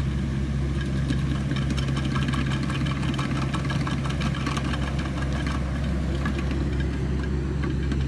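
Hitachi ZX65USB mini excavator's diesel engine running steadily, with a scatter of light clicks and rattles over its low hum.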